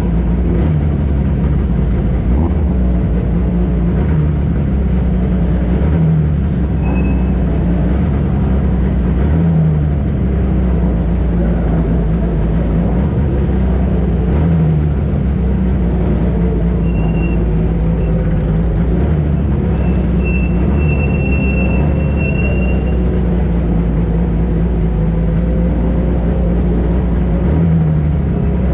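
Racing car engine running with a steady low rumble that swells slightly every few seconds.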